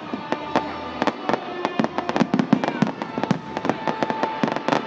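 Fireworks going off: a rapid, irregular stream of sharp bangs and crackles from bursting aerial shells and rockets, thickest midway.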